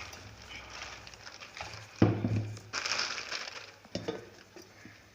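Plastic lid being handled and fitted onto a mixer grinder jar: a sharp knock about two seconds in, a short rustle of plastic, then another click about four seconds in.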